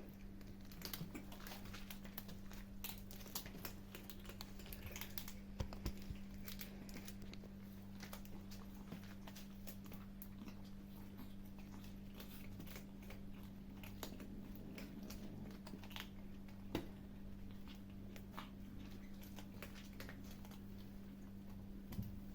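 Kittens eating, a scatter of small irregular chewing and crunching clicks, over a steady low hum.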